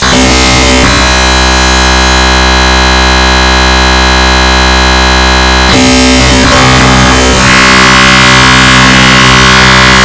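Loud, dense wall of synthesized MIDI notes sounding as held clusters of many pitches at once, typical of a black MIDI rendition. The cluster switches abruptly to a new block of notes about a second in, again near six seconds, and once more about halfway between six and eight seconds.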